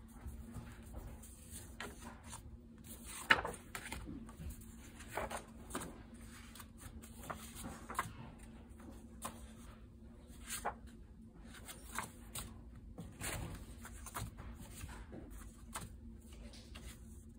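Loose paper notecards being handled and leafed through by hand, each card sliding off the stack with a short papery rustle, roughly one a second, with a sharper snap about three seconds in.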